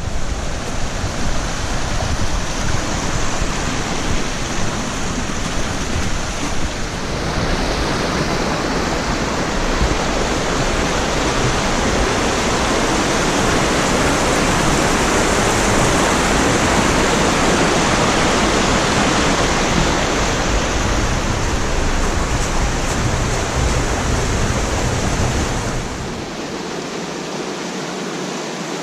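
Rushing water of a spring snowmelt mountain stream: a steady, loud roar that swells toward the middle. A low rumble underneath cuts off near the end.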